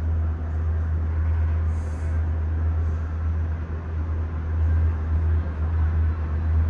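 Steady low rumble of a Disney Skyliner gondola cabin in motion, heard from inside the cabin.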